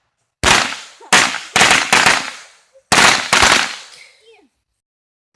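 Consumer fireworks going off: a string of about eight sharp bangs in three quick groups, each ringing out briefly before the next.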